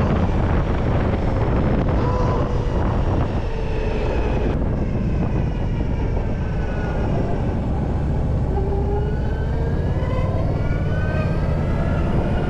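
Zero SR/S electric motorcycle under way: a steady rush of wind and road noise, with a thin whine from the electric drive that falls and then rises in pitch as the speed changes.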